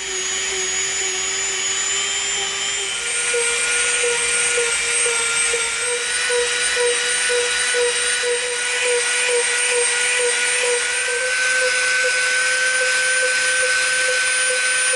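Dremel rotary tool with a sanding drum running steadily as it rounds over the outer edge of EVA foam, a continuous whine. About three seconds in its pitch steps up and then holds.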